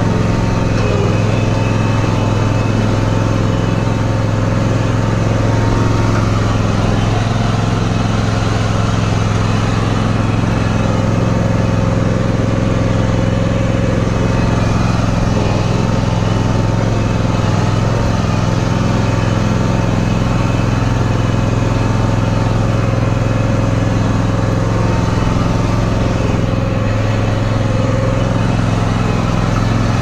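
John Deere X300R lawn tractor engine running at a steady pitch while the tractor pushes snow with its front blade.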